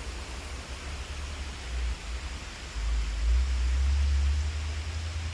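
Creek water running: a steady rushing hiss. Under it a heavy low rumble on the microphone swells from about three seconds in and eases near the end.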